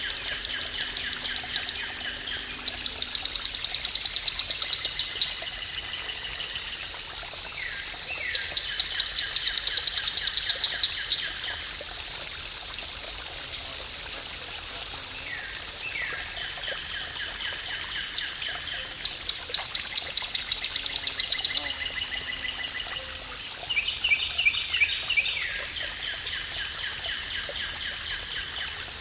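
Steady rush of a small waterfall, with a songbird singing rapid trilled phrases every few seconds over it, each lasting one to three seconds. A steady high whine runs underneath throughout.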